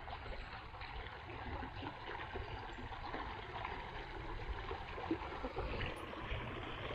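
Steady rush of a small creek's rain-swollen water flowing past the bank.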